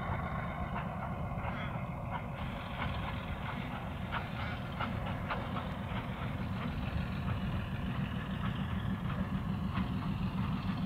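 Distant rumble of a Y class diesel-electric locomotive's six-cylinder EMD 645-E engine as the loco approaches, low and steady and growing slowly louder.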